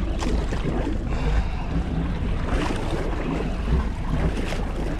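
Wind buffeting the microphone and sea water slapping against a small boat's hull, a steady low rumble with a few brief splashy peaks.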